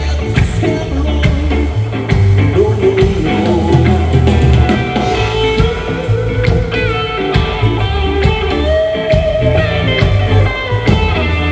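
Rock band playing live: electric guitar lines over bass and drums.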